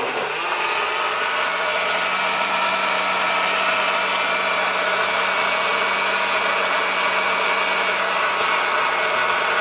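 Jaipan Fruttica blender running at one steady speed, its motor giving an even, constant-pitched whine as it purées watermelon chunks into juice.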